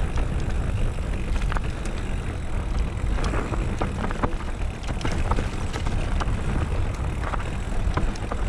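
Mountain bike rolling fast down a dirt woodland trail: a steady rumble of wind on the microphone and tyres on the ground, broken by frequent sharp clicks and rattles from the bike.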